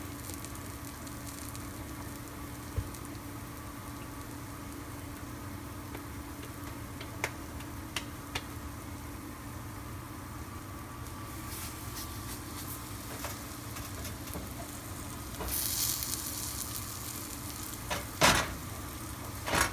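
Biscuit dough frying in shallow hot oil in a cast iron skillet: a steady, quiet sizzle with a few light clicks. A few seconds before the end the sizzle flares louder as a third round of dough goes into the oil, followed by a couple of sharp knocks.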